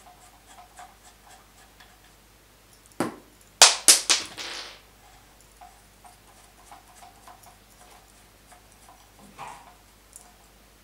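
An orange plastic cap being worked on a metal airsoft barrel by hand: faint rubbing and ticks, with a burst of several sharp, loud clicks about three to four seconds in as the cap comes off.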